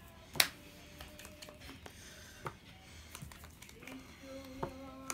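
Sleeved trading cards being handled and set down on a cloth playmat: a few sharp clicks and taps, the loudest about half a second in.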